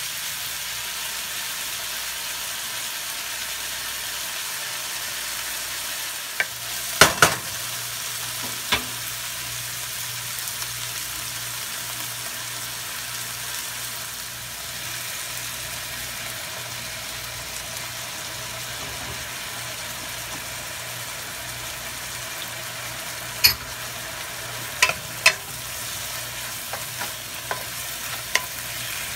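Chicken pieces and chopped garlic sizzling steadily in oil in a nonstick wok. Sharp knocks of a wooden spatula against the pan come a couple of times about seven seconds in and several times near the end, as the meat is stirred.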